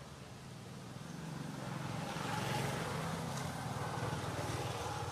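A motor vehicle passing, its engine hum swelling to a peak about halfway through and then fading.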